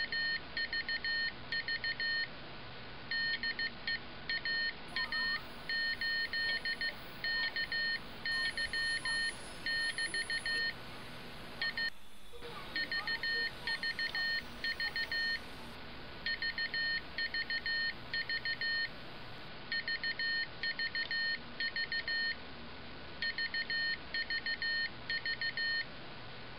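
Morse code (CW) heard through a radio receiver: a high beeping tone keyed on and off in runs of short and long beeps, with a few brief pauses, over steady receiver hiss and a faint steady whistle.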